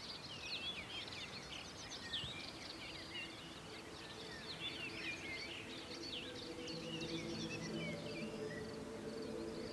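A dense chorus of songbirds singing: many overlapping short chirps and whistles. From about four seconds in, soft held musical notes fade in beneath the birdsong and grow louder toward the end.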